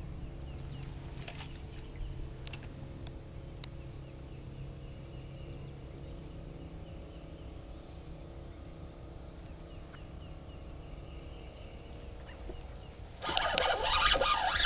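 Steady low hum with a few light clicks. About 13 seconds in, a loud scraping burst of handling noise as the spinning reel is worked right against the microphone.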